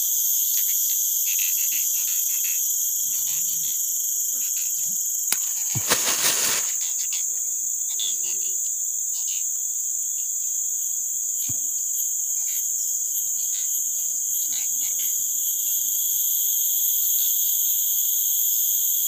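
Steady chorus of insects, several shrill high-pitched tones held without a break. A brief loud rustle cuts across it about six seconds in, with a few small clicks from handling.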